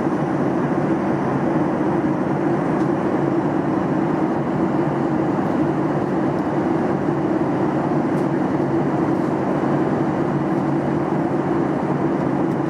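Steady engine and air noise heard inside the cabin of a Boeing 737 MAX 8 airliner: an even, unbroken roar, strongest in a low hum.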